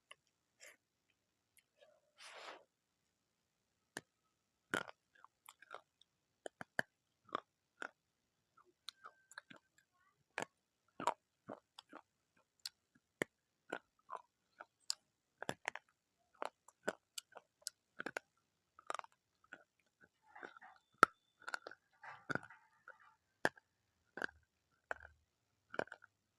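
A person chewing crunchy food close to the microphone, with many sharp, irregular crunches.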